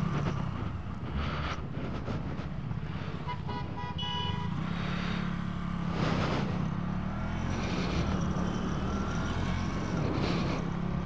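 KTM Duke motorcycle engine running steadily while riding in traffic. A vehicle horn honks briefly about three and a half seconds in, and there is a short rush of noise about six seconds in.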